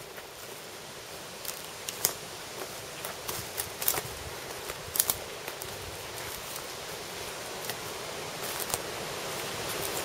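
Footsteps crunching and snapping through dry leaf litter and fallen twigs, in irregular sharp crackles. Under them runs a steady rushing noise that grows louder toward the end.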